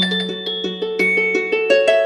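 OPPO A1K phone ringtone starting suddenly: a bright, quick melody of rapidly repeated bell-like notes, about six a second.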